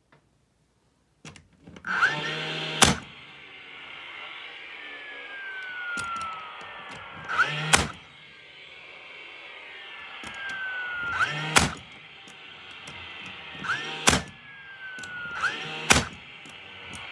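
An 18-gauge DeWalt brad nailer firing five times, a few seconds apart, shooting 1-inch brad nails into pallet boards. Each shot is a sharp crack that starts with a brief motor whir and ends with a falling whine.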